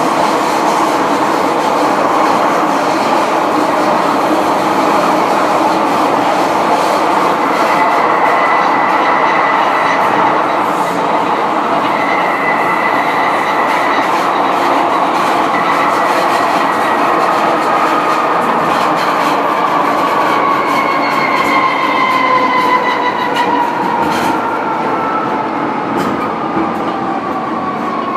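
MTR Kwun Tong line M-Train (cars A205/A208) heard from the driving cab while running on the line, with steady running noise. The motor whine falls in pitch through the second half as the train slows, and there are a few clicks near the end.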